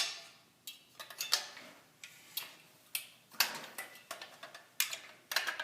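Lozier steel shelving bottom rail being hooked into the notches of the upright posts: a string of sharp metallic clicks and clanks, about ten, irregularly spaced.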